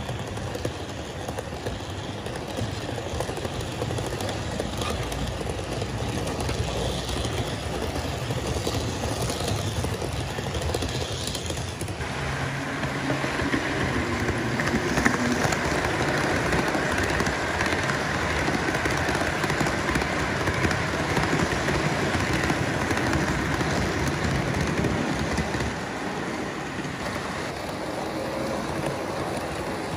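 HO scale model trains running on the layout: steady rolling and whirring of the cars and locomotive on the track. About twelve seconds in the sound gets a little louder and brighter.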